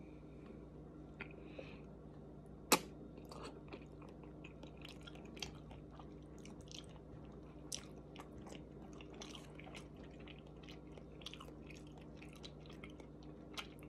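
A person chewing thick udon noodles: many soft, wet mouth clicks and smacks, with one sharper click about three seconds in.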